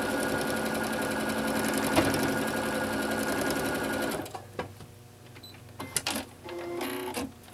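Domestic electric sewing machine stitching a quilt seam at a steady speed, stopping about four seconds in. A few light clicks and fabric handling noises follow as the piece is pulled from under the presser foot.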